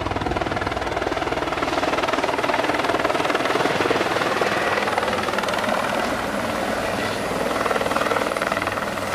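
Light single-engine helicopter with a shrouded (fenestron) tail rotor flying in low and descending to land, a steady loud rotor chop and turbine noise throughout.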